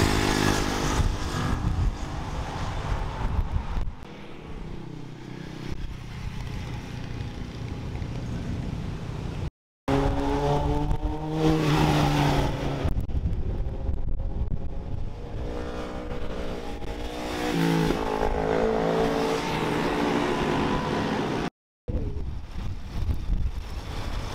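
Sports vehicle engines passing through a bend, in three short clips separated by sudden cuts. The engine pitch climbs as they accelerate, most plainly after the first cut and again towards the end of the second clip.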